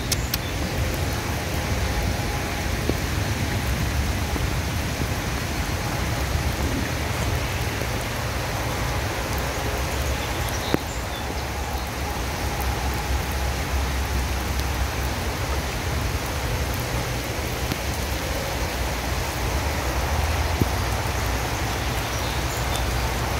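Steady rain falling on pavement, an even hiss with a low rumble underneath.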